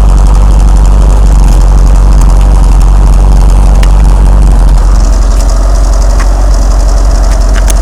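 1987 Mitsubishi Starion's four-cylinder engine idling loudly and unevenly: the rough idle the owner is showing. The note shifts slightly about five seconds in, and a few light clicks sound over it.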